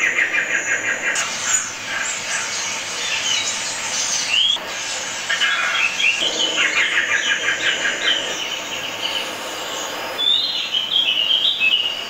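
Bird calls from a nature-film soundtrack: rapid chattering trills of chirps, a short rising whistle about four seconds in, and a higher warbling call near the end.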